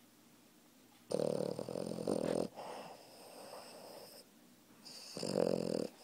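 A sleeping Boston terrier–French bulldog mix puppy snoring loudly: two loud snores, one about a second in and one near the end, with a softer breath between them.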